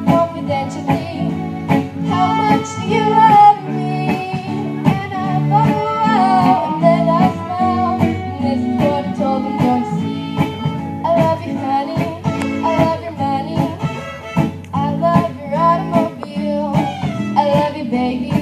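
Live fiddle band music: fiddles carry a wavering melody over a steady strummed guitar accompaniment.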